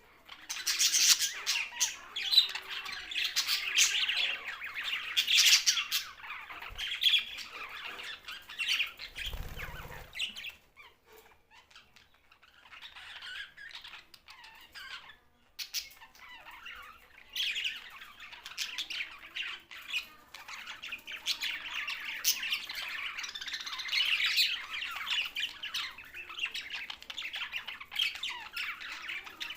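A group of budgerigars chattering and squawking, many calls overlapping. The chatter thins to softer calls for several seconds in the middle, then grows dense again. There is a brief low thud about nine seconds in.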